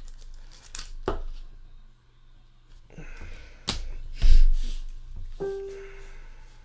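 Trading cards and rigid plastic toploader holders being handled on a table mat: a few sharp clicks and taps, then a louder thump about four seconds in. A short steady tone sounds about a second later.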